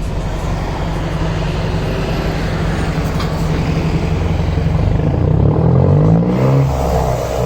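Mercedes-Benz LO 916 bus's OM 924 LA four-cylinder turbodiesel running, steady at first, then the engine note rises and swings in pitch from about five seconds in as the engine speed changes, with a brief dip near the end.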